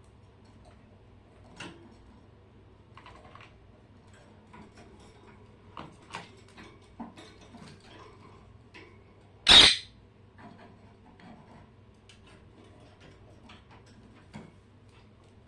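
Pet birds in a cage: faint scattered clicks and scratches of movement, and one short, harsh squawk about two-thirds of the way through, the loudest sound.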